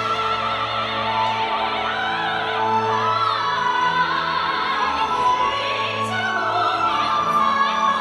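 Dance music playing: a Chinese folk-style song, sung with a wide vibrato over an orchestral accompaniment.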